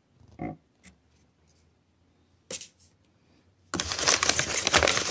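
Plastic snack pouch of beef jerky crinkling loudly as it is picked up and handled, starting about three-quarters of the way in, after a few quieter handling sounds.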